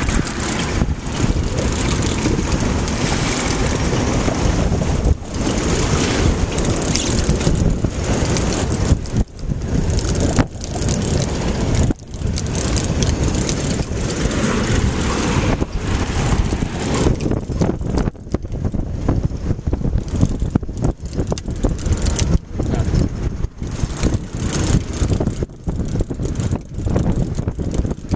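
Loud wind buffeting the microphone aboard a small open fishing boat at sea, a dense steady rumble with a few brief dips.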